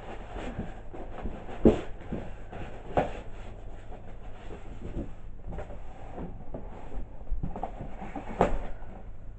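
Irregular clicks, knocks and light rustling from objects being handled, with a sharp knock about two seconds in and another near the end.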